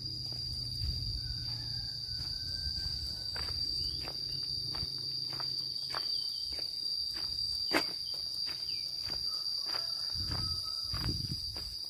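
A steady, high-pitched drone of insects, with the light, irregular ticks of footsteps on the path.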